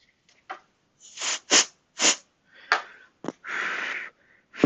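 Short hissing bursts of air, from an inverted compressed-air duster spraying freeze onto an iPhone 7 logic board and from puffs of breath blown across the board. There is a sharp click, then one longer steady hiss of under a second near the end.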